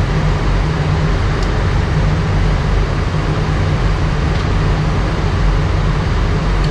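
Steady flight-deck noise of an Airbus A319 descending with its engines at idle thrust: a constant rush of air with a steady low hum underneath.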